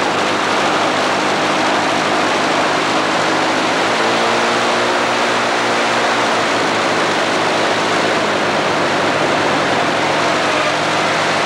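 Vehicle engine running steadily under a loud, constant rushing noise; around the middle a set of engine tones rises and then falls in pitch.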